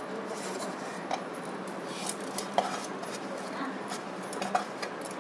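Scattered light clinks and scrapes of the metal oil pan of a Juki sewing machine being wiped clean by hand, over a faint steady hum.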